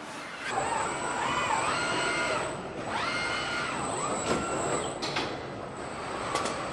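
Car assembly line machinery running with a steady noisy hum. Twice a mechanical whine rises, holds and falls over a second or two, the first about half a second in and the second about three seconds in.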